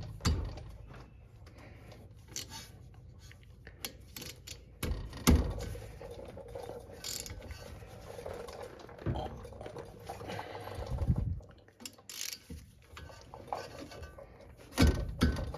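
A 14 mm socket wrench working on the front brake caliper bolts: scattered metal clicks and clanks, with a few louder knocks, as the bolts are broken loose.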